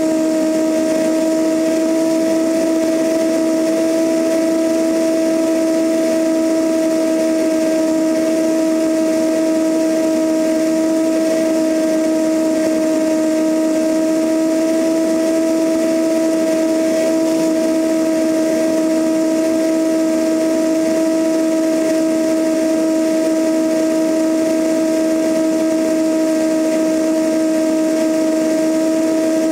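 Cessna 172N's four-cylinder Lycoming engine and propeller droning steadily in flight, an unchanging hum of two strong pitches, heard from outside the aircraft with airflow rushing past the microphone.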